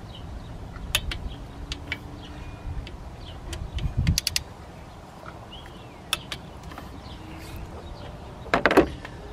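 Scattered small clicks and knocks of hands and tools working around the timing belt and cam sprockets of an engine, over steady outdoor background noise. A cluster of louder knocks comes about four seconds in, and a short louder rattle comes near the end.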